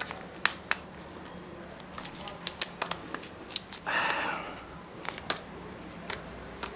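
Irregular small metal clicks and scrapes as a thin flat screwdriver tip picks at a wire retaining clip seated inside the top of a scooter's front fork tube.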